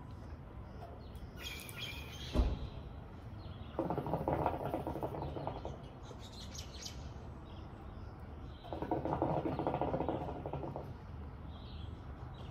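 Hookah water bubbling as someone draws on the pipe, in two pulls of about two seconds each, about four and nine seconds in. Birds chirp now and then, and there is a short knock about two seconds in.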